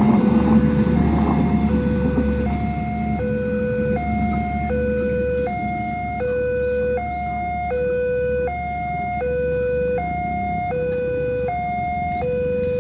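Railway level-crossing warning siren sounding a steady two-tone hi-lo alarm, switching between a lower and a higher pitch about every three quarters of a second. A passing train's rumble fades away over the first two or three seconds.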